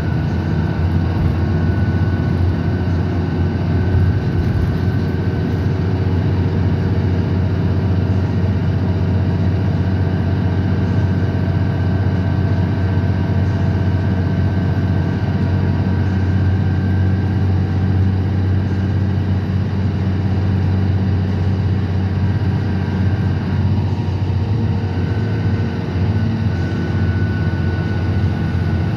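Cummins ISL9 diesel engine of a Gillig Advantage 29-ft low-floor transit bus running steadily at cruise, heard from inside the passenger cabin as a constant low drone mixed with road noise. A thin high whine runs over it and drops out briefly about twenty-four seconds in.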